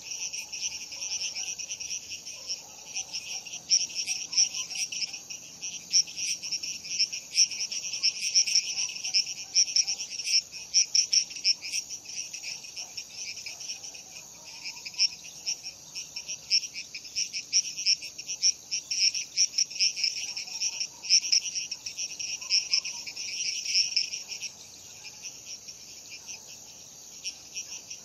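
Night chorus of crickets chirping in rapid, overlapping high-pitched pulses that never stop, with fainter frog calls underneath.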